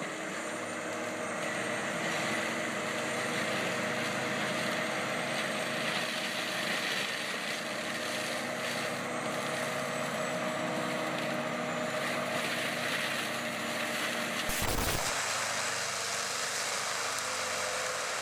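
Heavy tracked forestry mulcher running steadily, an engine drone with steady whining tones. About fifteen seconds in a sharp click breaks it, and a thinner machine noise carries on.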